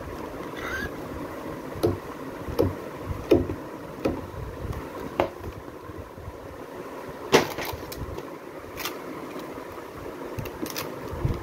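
Hardback children's books handled and shifted in a cardboard box: a series of irregular knocks and taps of board covers against each other, the sharpest about seven seconds in, then a book being opened.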